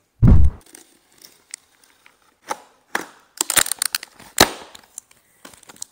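A deep thump just after the start, then a cardboard box being opened: flaps and tape giving a handful of short crackles and rips.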